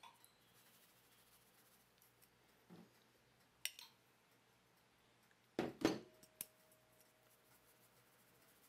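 A metal flour sieve clinking against the rim of a stainless steel mixing bowl while flour is sifted into cake batter: a few faint knocks, the loudest cluster about halfway through, leaving a thin metallic ring that fades over a couple of seconds.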